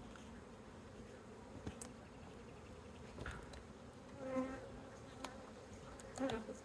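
Honeybees of a caught swarm buzzing as a steady hum, with a louder buzz as a bee passes close about four seconds in and again near the end.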